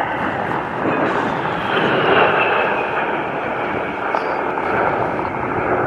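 Fairchild Republic A-10 Thunderbolt II jet noise from its twin General Electric TF34 turbofans as it flies by, a steady rush with a high whine that falls in pitch about two seconds in.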